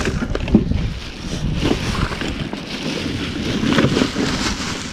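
Wind buffeting the microphone, with scattered rustles.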